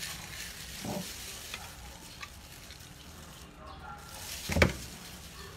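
Wet chewing and mouth sounds of a person biting into and eating a large block of raw fish, over a steady hiss. A single thump stands out about four and a half seconds in.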